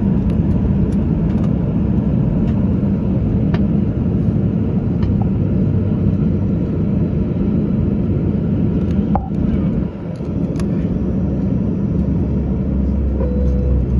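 Cabin noise inside a Ryanair Boeing 737-800 taxiing after landing: a steady rumble from its CFM56 engines and the wheels rolling on the taxiway, with scattered light clicks. Near the end a steady low hum joins in.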